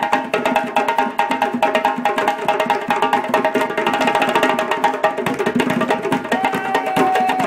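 A hand-drum ensemble of djembes and a pair of congas played with bare hands, interlocking in a dense, fast rhythm.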